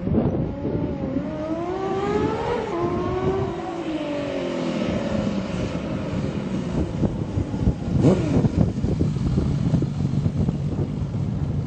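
Honda CBX 1050's air-cooled inline six-cylinder engine revving, its pitch rising for about three seconds and then falling back to a steady lower note. A sharp throttle blip comes about eight seconds in.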